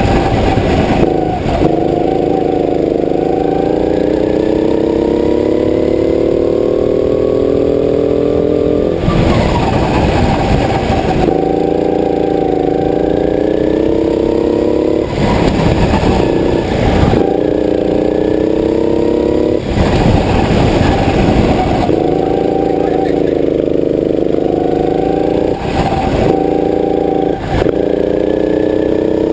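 Go-kart engine heard from the driver's seat while lapping a track: its pitch climbs slowly over several seconds of acceleration, then drops back, about four times, at rough, noisy breaks between the climbs.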